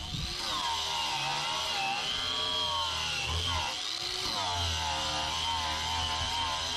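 Chicago Electric 4½-inch angle grinder running, its high whine dipping and rising in pitch again and again as the wheel is pressed into the work and eased off.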